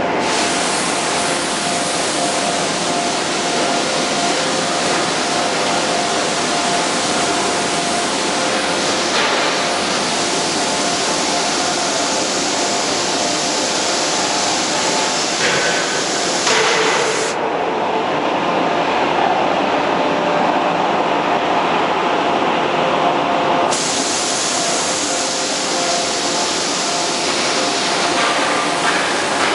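Loud, steady industrial machinery noise: a dense hiss with a faint underlying hum and a couple of light knocks, with no hammer blows.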